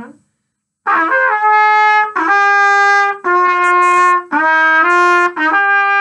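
Trumpet playing a short phrase: a few quick notes about a second in, then a string of held notes with brief breaks between them.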